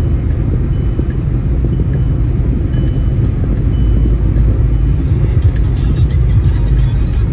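Inside the cabin of a Skoda Rapid 1.0 TSI, a turbocharged three-cylinder petrol car, driving at high speed on the highway: a steady low rumble of engine, tyres and wind.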